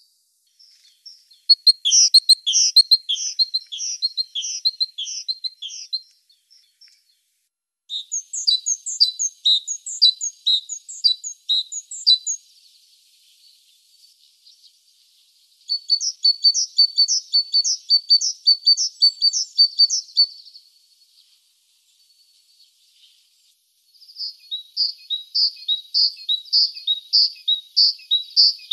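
Great tit singing: bursts of rapidly repeated high two-part notes, each phrase lasting a few seconds, four times with short pauses between.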